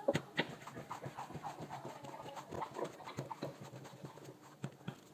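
Soft, slightly sticky yeast dough being kneaded by hand on a silicone mat: a run of irregular soft slaps and sticky squelches as it is pressed and folded, thinning out near the end.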